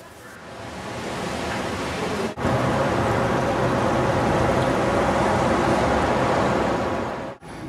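Steady city traffic noise. It swells over the first couple of seconds, drops out for an instant about two and a half seconds in, and cuts off suddenly near the end.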